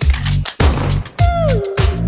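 Background electronic music with a heavy bass beat, a little under two beats a second, and a sliding tone that falls in pitch about a second in.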